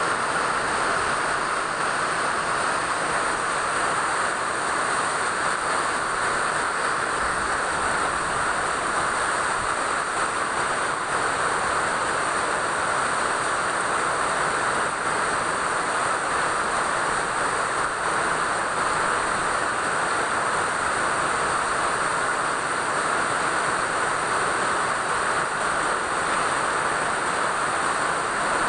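Steady rainfall, an even hiss with no separate drops or breaks.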